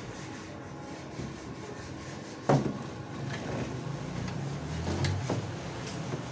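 Wooden stretcher frame knocking down flat onto a workbench once, sharply, about two and a half seconds in, followed by a few lighter wooden knocks and clicks as the frame and an industrial stapler are handled.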